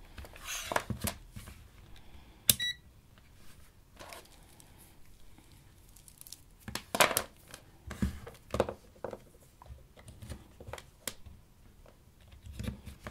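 Handling noise of a multimeter and its test leads: rustling and scattered plastic clicks and knocks as the leads are unwound and the probes handled, loudest about seven to nine seconds in. One short electronic beep comes about two and a half seconds in.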